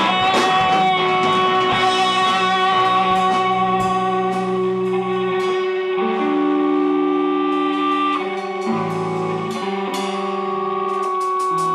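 Rock band playing instrumentally: electric guitar holding long sustained notes over a low bass line, with sharp hits that come thick in the first half and thin out later.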